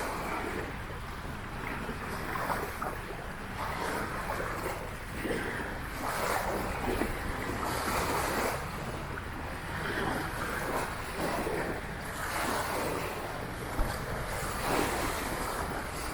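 Small waves washing against the lagoon shore in irregular swells, with wind rumbling on the microphone.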